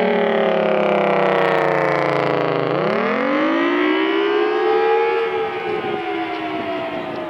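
Federal Signal Thunderbolt 1000T outdoor warning siren sounding the attack signal. Its wail falls in pitch, sweeps back up about three seconds in, then begins to fall again near the end.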